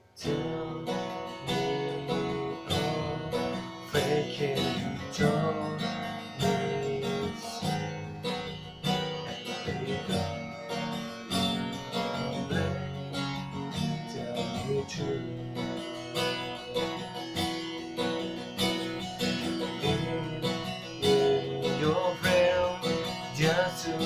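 Acoustic guitar strummed, playing chords that begin abruptly after a near-silent pause.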